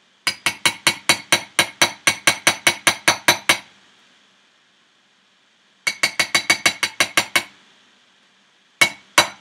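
A metal spoon tapping quickly against a white ceramic bowl, about six sharp clinks a second, knocking sour cream off the spoon. There is a run of about three seconds, a shorter run about six seconds in, and a few single taps near the end.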